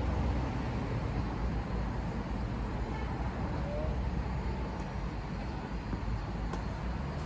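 Steady low rumble of outdoor background noise, with one faint sharp click about six and a half seconds in.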